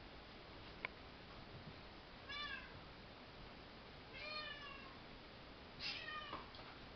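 Cat meowing three times, about two seconds apart, each call falling in pitch. A single sharp click about a second in.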